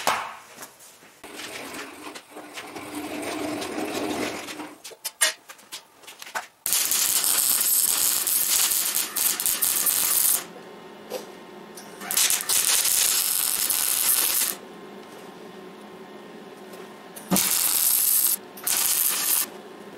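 Arc welder crackling in four bursts while test welds are laid on scrap steel cut from a corroded air compressor tank to set the welder up. The first burst starts about a third of the way in and lasts about four seconds, the others are shorter. A few clicks and knocks come before it.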